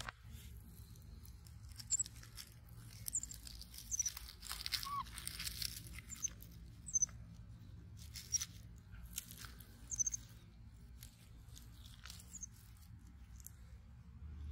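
Soft rustling and brushing on a fleece blanket as a baby capuchin moves on it and a hand strokes it, with short high chirps every second or two over a low steady hum.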